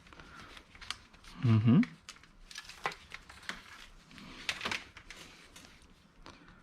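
Scattered clicks, taps and light rustling of scrap items such as cords, plugs and small plastic pieces being handled and sorted.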